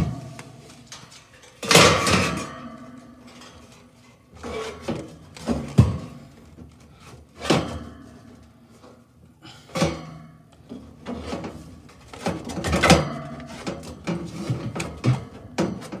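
Irregular knocks, clunks and rustling from hands handling parts at a gas furnace. The loudest strikes come about two seconds in and again around thirteen seconds.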